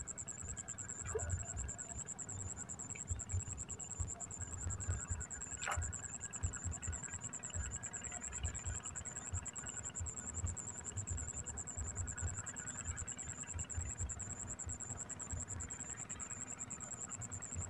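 Low, irregular buffeting rumble on the microphone in the open air by the lake, with a steady high-pitched whine throughout and a single sharp click about six seconds in.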